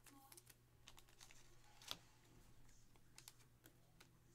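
Faint computer keyboard typing: scattered soft key clicks, one sharper click about two seconds in, over a low steady hum.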